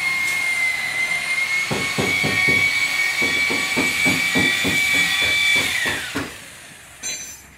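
High-pitched whine and hiss of a workshop power tool running steadily. Through the middle it makes a rhythmic rasping, about three strokes a second. About six seconds in the whine falls in pitch as the tool winds down.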